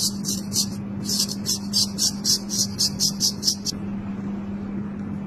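Straight razor scraping short stubble off a dry scalp in quick, short strokes, about five or six a second, which stop a little before the end. A steady low hum runs underneath.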